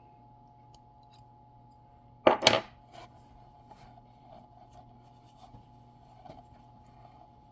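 A sharp double clack about two seconds in, as sewing machine parts are handled and set in place, with faint small clicks around it.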